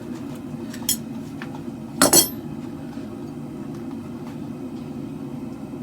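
Two-burner propane forge running steadily, with a light metallic click about a second in and a sharp, ringing metal clang, a quick double strike, about two seconds in.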